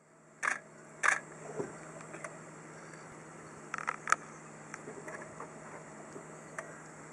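Handling clicks and knocks on a hand-held compact digital camera: a few sharp clicks, the loudest in the first half, over a steady low hum.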